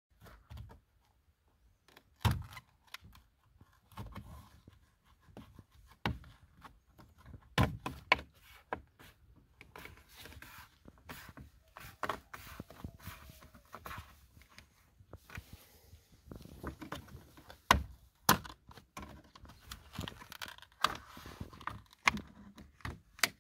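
Irregular clicks, knocks and scraping of hands working on a BMW F30's door mirror and door: plastic wiring connectors unplugged and parts handled, with a few sharp knocks standing out.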